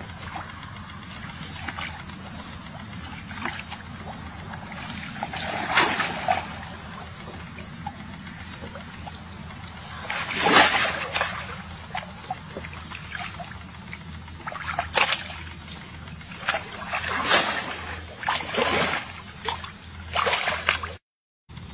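Shallow muddy water splashing and sloshing in irregular bursts as a person wades through it and pushes a woven basket fish trap down into the water. The loudest splash comes about ten seconds in.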